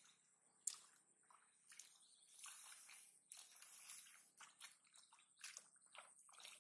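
Faint, irregular splashing and squelching of hands and feet in shallow muddy water and wet grass, with a sharper splash about a second in.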